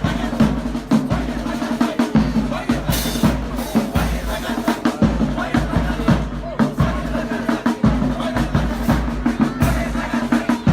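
Marching band music: a busy snare and bass drum beat with drum rolls over steady low sustained notes.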